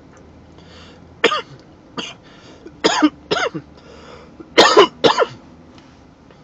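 A man coughing hard, about six harsh coughs in short bursts with breathy exhales between, after inhaling a dab of cannabis concentrate vapour that caught in his throat.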